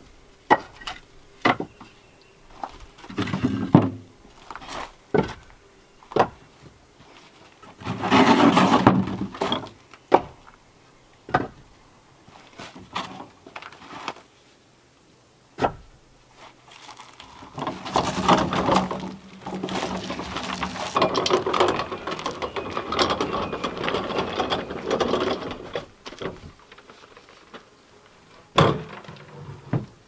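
Split firewood being stacked by hand: scattered sharp wooden knocks as single pieces are set down, and two longer stretches of pieces clattering and scraping against one another.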